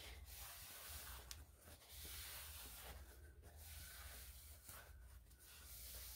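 Faint rubbing and swishing of a paper towel being wiped over a tumbler to clear off Bar Keepers Friend cleanser, in uneven strokes over a low steady hum.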